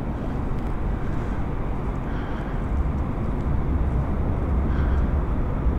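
Honda CB125's single-cylinder engine idling in neutral, a steady low running sound.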